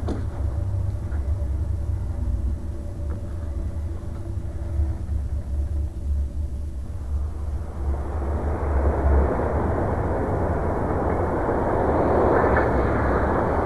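Low, steady rumble with a rushing vehicle noise that swells in from about halfway and stays loud to the end, like a heavy vehicle or train going by.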